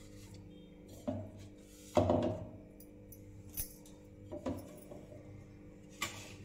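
Steel kitchenware clinking and knocking as vegetables and a steel mixer-grinder jar are handled on the counter: a few separate knocks, the loudest about two seconds in, over a steady low hum.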